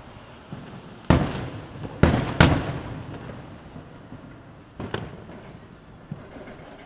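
Aerial firework shells bursting: three loud booms in quick succession in the first two and a half seconds, each trailing off in a rumbling echo, then a smaller boom about five seconds in.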